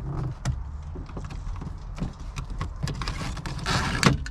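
Hands working on a truck's door trim: irregular clicks and knocks of plastic parts, with a scraping rustle near the end and a sharp click just before it stops.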